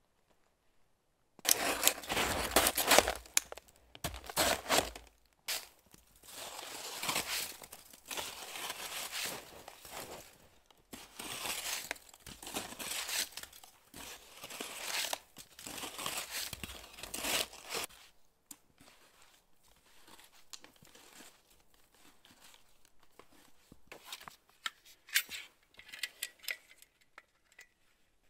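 Irregular bursts of rustling and crunching handling noise through most of the first two-thirds, then quieter scattered clicks and taps.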